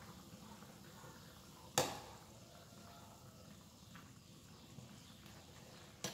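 A ladle knocking sharply against the metal wok, once about two seconds in and again at the end, each with a short ring. A faint steady hiss runs underneath.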